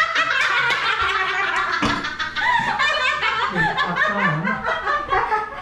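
People laughing, several voices overlapping.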